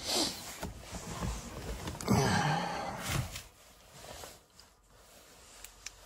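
Someone getting into a car's driver seat: rustling and shuffling against the seat and door, with a short breathy vocal sound about two seconds in.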